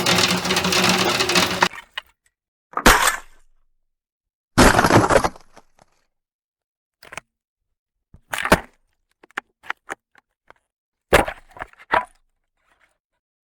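Ice cracking and breaking: dense crackling that stops about two seconds in, then a string of separate sharp cracks and snaps, a few of them longer, spaced irregularly through the rest.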